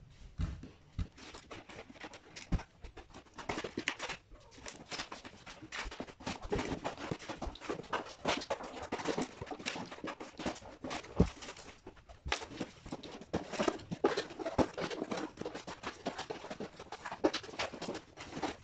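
A large cardboard shipping box and its packing being opened and handled: a dense, irregular run of rustling, scraping and crinkling, with a sharp knock about eleven seconds in.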